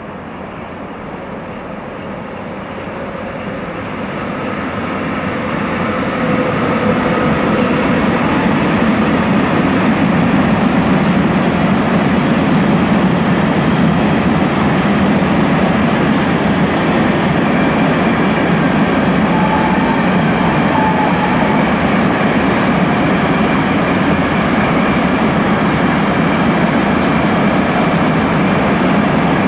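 Freight train of Eas open wagons hauled by a ČD Cargo class 182 electric locomotive, approaching and running past. The rumble of wheels on rail grows over the first six seconds, then holds steady and loud as the train rolls by.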